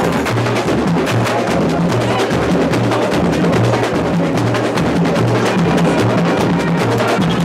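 A samba school bateria (drum section) playing a samba groove: the big surdo bass drums beat low notes that alternate between two pitches, under a dense, fast clatter of snare drums.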